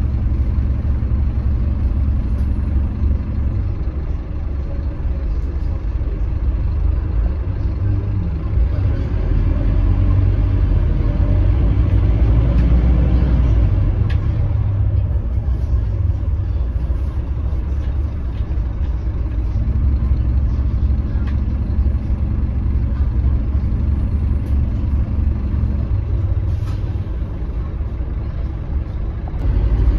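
Scania K310UB city bus running, heard from inside the passenger cabin as a steady low drone. It grows louder about a third of the way through and eases off near the end.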